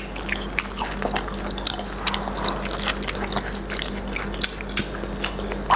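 People chewing and biting fried chicken nuggets and rice paper rolls close to the microphone: many small, wet mouth clicks, over a faint steady hum.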